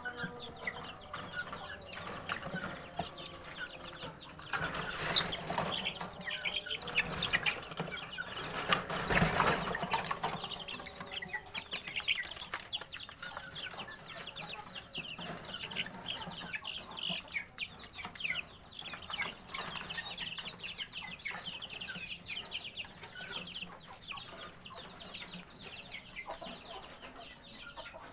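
Kampung chickens crossed with Burmese fowl clucking and calling in short, quick notes, with a louder rustling, scuffling stretch from about five to ten seconds in.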